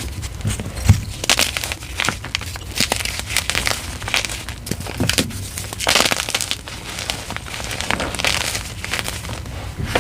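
A block of gym chalk topped with holi powder and glitter being crushed and crumbled, in repeated bouts of dry crunching and crackling, with a dull thump about a second in.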